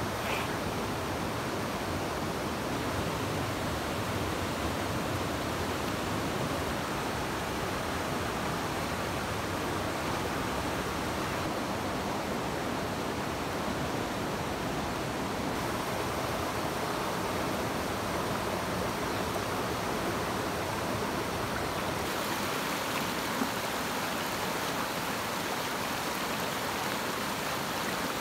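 Steady rush of a rocky stream flowing over stones and small rapids.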